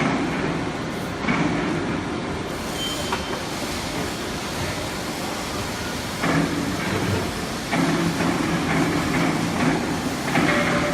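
Four-roll CNC plate rolling machine running, a steady mechanical rumble with a low hum from its drive that comes and goes in stretches of a second or two.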